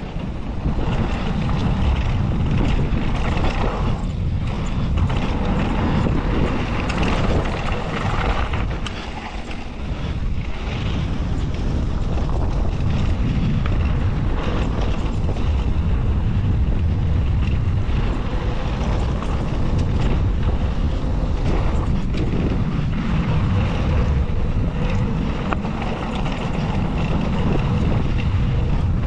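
Wind buffeting the microphone of a GoPro on a downhill mountain bike riding a dirt singletrack, with the tyres rolling over the dirt and the bike rattling over the bumps.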